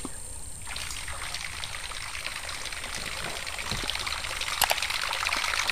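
Water splashing and spluttering as a double-propeller topwater lure is reeled back across the surface, its propellers churning the water. It starts under a second in and grows louder toward the end.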